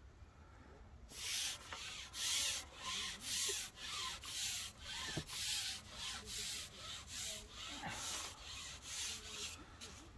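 Rhythmic rubbing or scraping strokes, about two to three a second, starting about a second in and stopping just before the end.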